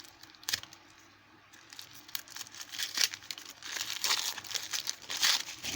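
Wrapping crinkling and crumpling as a heavily wrapped lock is unwrapped by hand. A few small clicks at first, then dense rustling that starts about two seconds in and grows louder.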